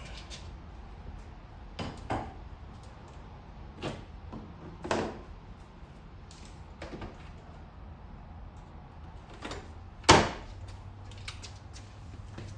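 Metal parts and hand tools being handled during engine reassembly: scattered short knocks and clinks over a steady low hum, with one sharp, loud knock about ten seconds in.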